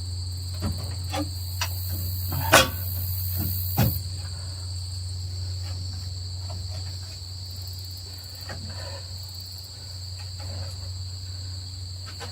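A few sharp metal knocks and clinks, the loudest about two and a half seconds in, from a pry bar working at a Massey Ferguson 165's cylinder head that is still held by its studs and dowel pins. Under them runs a steady high-pitched whine and a low hum.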